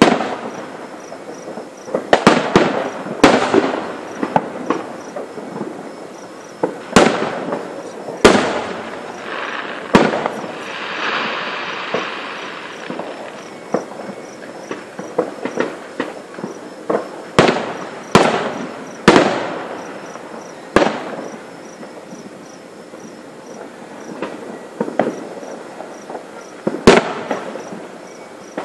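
Fireworks show: aerial shells bursting in an irregular series of sharp bangs, some close together, with a stretch of hissing crackle near the middle.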